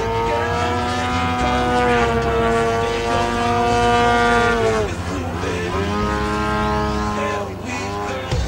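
Engine of a large radio-controlled Sukhoi 29S aerobatic model plane in flight. It runs steadily, then its pitch drops sharply and climbs back twice: once about five seconds in and again near the end.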